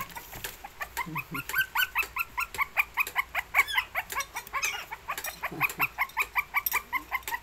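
Shih Tzu puppies whining and yipping: a rapid string of short, high-pitched cries, several a second.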